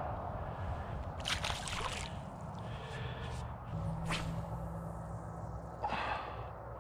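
Water splashing as a small largemouth bass is let go back into the pond, then a cast with a baitcasting rod: a swish about four seconds in, and a short splash near the end as the lure lands.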